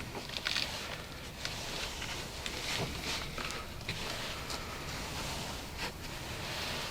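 Faint rustling with scattered soft clicks, several short hissy bursts at uneven intervals over a low background hiss.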